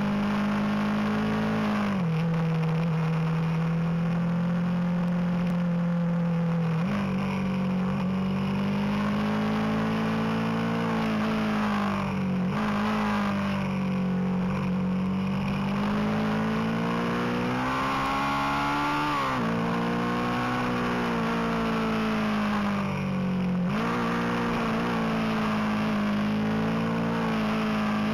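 Motorcycle engine running under load as the bike is ridden hard on a twisty road, its note rising and falling with the throttle and jumping abruptly up or down at each gear change, several times, over a constant rush of noise.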